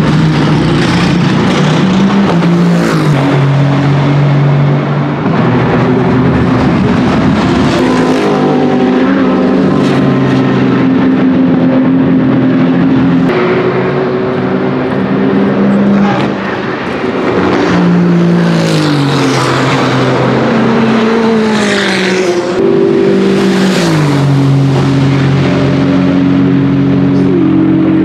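Aston Martin Vantage GT3's twin-turbo Mercedes-AMG V8 racing, the engine note holding steady pitches and then jumping and falling through gear changes and braking. About two-thirds of the way through come a few short, sharp bursts: blow-off valve releases and backfires.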